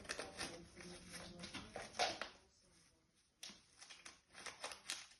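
Irregular crinkles and taps of a paper ball being batted and pounced on by a cat, loudest about two seconds in, with a short pause near the middle.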